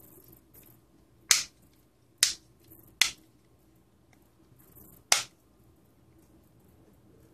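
Plastic snap-fit clips of a power bank's case clicking into place as the two halves are pressed together: four sharp clicks, the first three about a second apart and the fourth about two seconds later.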